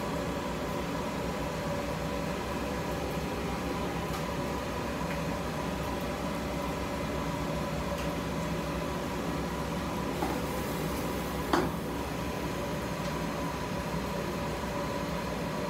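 Steady hum of kitchen ventilation with a faint whine, and one sharp clack about eleven and a half seconds in.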